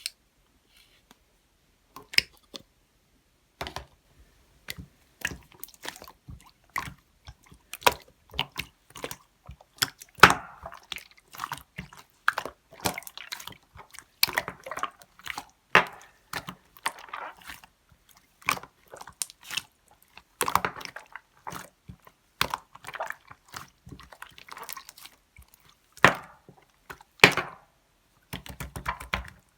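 Slime being squeezed and poked by hand: an irregular run of wet, sticky pops and clicks with short squishes, starting about two seconds in.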